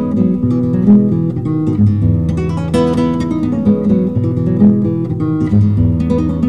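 Background music on acoustic guitar, strummed and picked, with several quick note attacks a second.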